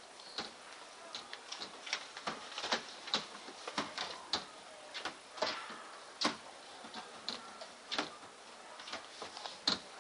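White plastic tilt-out storage compartments being flipped open and pushed shut by hand, making a run of irregular light clicks and knocks.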